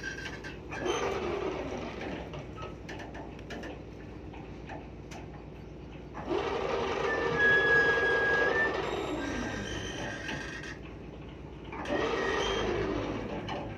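Lifeboat davit winch motor running in three short bursts, each starting abruptly and falling in pitch as it winds down, with scattered clicks between the runs.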